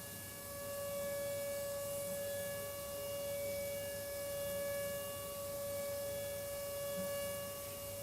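Steady high-pitched machine whine with a row of overtones, swelling slightly in level, from a CNC milling setup: the high-speed spindle or the vacuum pump that holds the part.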